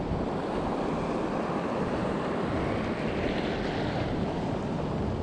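Steady wind rumbling on a GoPro's microphone, mixed with the wash of small waves over a shallow sand flat.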